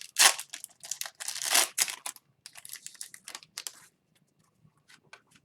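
Hockey card pack's foil wrapper crinkling and tearing in a run of irregular rustles as it is opened and handled, thinning to a few faint ticks near the end.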